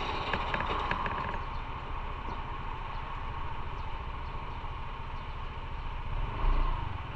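Motorcycle engine running with a steady low rumble, mixed with road and wind noise, while the bike is ridden.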